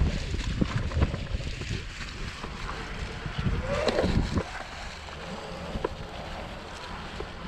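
Wind buffeting the microphone over the rumble and frequent knocks of a mountain bike rolling along a dirt trail.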